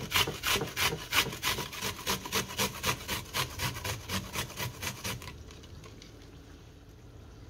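Onion being grated by hand on a grater: quick, even rasping strokes, about four or five a second, that stop about five seconds in.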